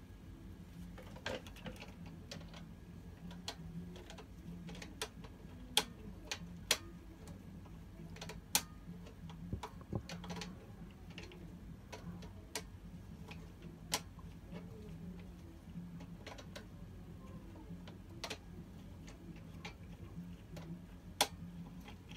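Sharp metallic clicks and taps at uneven intervals as pliers grip and turn the fitting of a caster wheel on a steel folding-desk frame, over a steady low hum.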